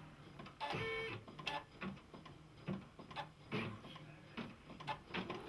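Computerized embroidery machine clicking and knocking unevenly as it sets off stitching with the black thread, with a short tone about a second in.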